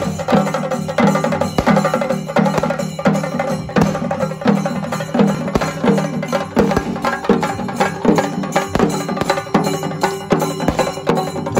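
Chenda melam: a group of chenda drums beaten rapidly with sticks, with ilathalam hand cymbals clashing along, in a steady driving rhythm with a strong accent about every two-thirds of a second.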